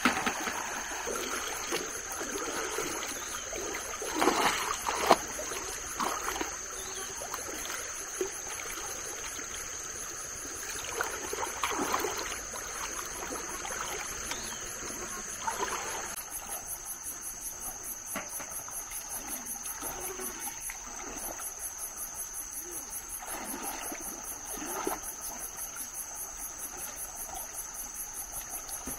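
Insects buzzing in a steady high whine over water splashing and sloshing as a hand net is worked through a shallow stream. About halfway through, a fast, even pulsing insect chirp joins in.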